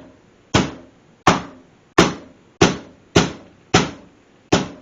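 Meat tenderizer mallet pounding boneless pork chops against a sturdy counter: seven heavy strikes at a steady pace, about one every two-thirds of a second, cubing and flattening the meat.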